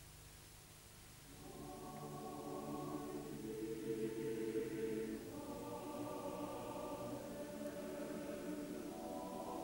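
Background music: a choir singing slow, held chords. It comes in softly about a second and a half in, and the chords change twice.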